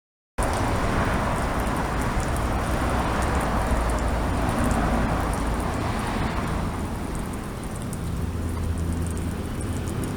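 A steady deep rumble under a noisy hiss, cutting in abruptly about half a second in; the hiss thins out after about six seconds while the low rumble carries on.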